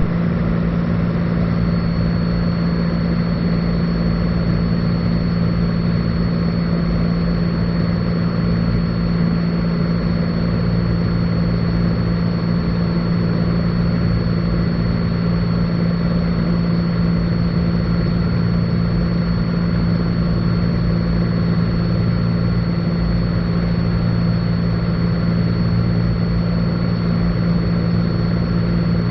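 Cessna 182 Skylane's piston engine and propeller droning steadily in flight, heard inside the cabin, with a thin high steady whine over it.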